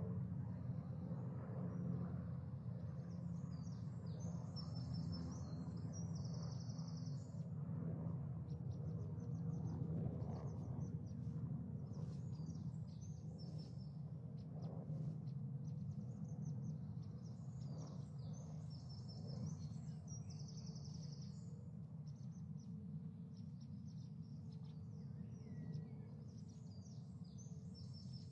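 Recorded birdsong: short chirping phrases repeating every few seconds over a steady low rumble. It is the birdsong track that Big Brother's live feed plays in place of the house sound when the housemates' talk cannot be aired.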